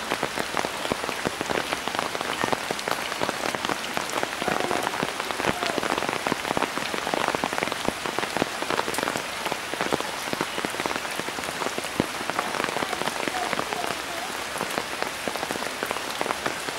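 Steady rain falling on the surface of a flooded stream, a dense patter of drops.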